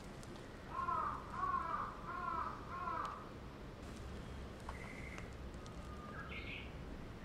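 A crow cawing four times in quick succession.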